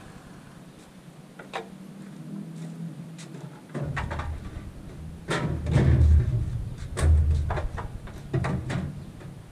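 Irregular knocks, clunks and clicks of a water vending machine's fill-compartment doors and plastic water jugs being handled against it, with the heaviest thuds past the middle.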